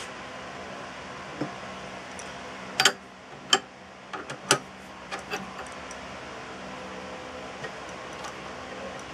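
A steady machine hum with a handful of sharp hard clicks and knocks, like tools or small parts being handled, several in quick succession in the middle.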